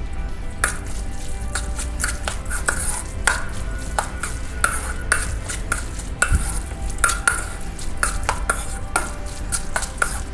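A metal spoon stirring diced raw salmon in a stainless steel mixing bowl: irregular scrapes and clinks of the spoon against the bowl, with the soft squelch of the moist fish.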